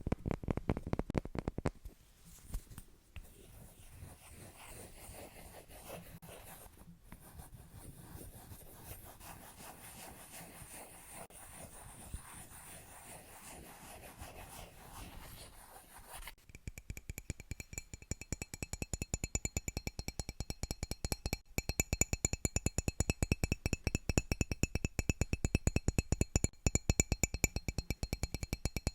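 Trigger sounds on hard objects: a short run of fast tapping, then a soft, steady scratching for about fourteen seconds, then very fast, even tapping with a bright ringing tone from a little past halfway.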